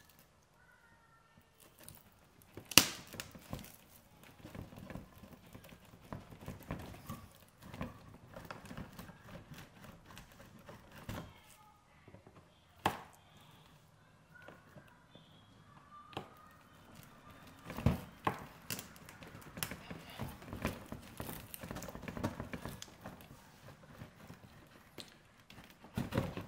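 Hands pressing and smoothing a sheet of birch bark, with dry rustling and crackling and a few sharp knocks, the loudest about three seconds in.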